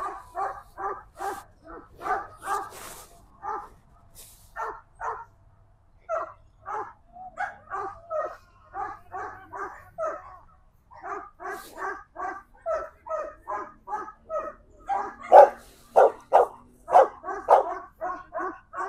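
A working dog barking over and over in quick, even succession, about two to three barks a second, louder for a few seconds near the end.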